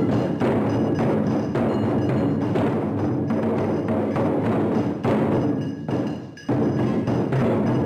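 Taiko drums played by an ensemble in a fast, driving rhythm of dense strikes. The playing thins out briefly and comes back with a hard unison hit about six and a half seconds in.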